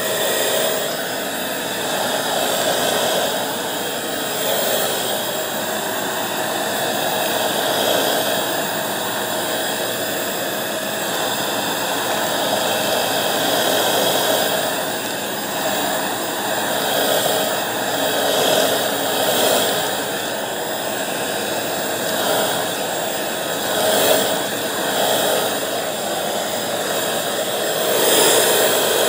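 Bissell 3-in-1 stick vacuum running with a steady whine and rush of air, pushed back and forth over a shag rug as it sucks up Cheerios; the level swells and dips slightly with the strokes.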